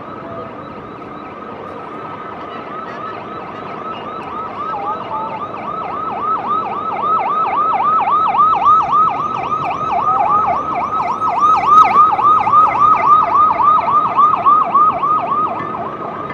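Police sirens on a passing motorcade: a steady wail turns about four seconds in into a fast yelp of about four or five sweeps a second, growing louder as the vehicles approach and pass, then dropping off near the end.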